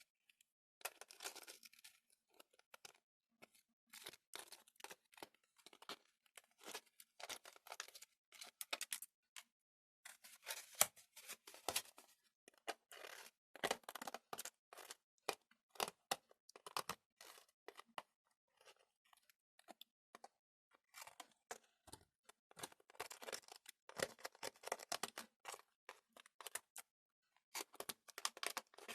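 Hands prying homemade gelatin jelly out of thin plastic candy moulds: irregular crinkling and crackling in short bursts with brief pauses.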